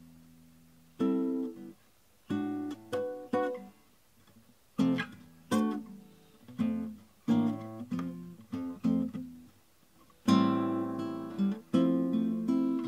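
Classical guitar played slowly: single chords struck and left to ring out, with short pauses between them. About ten seconds in it turns to fuller, continuous strumming.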